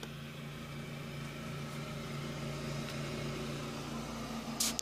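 A steady low hum with a light hiss over it, and a brief sharp hiss near the end.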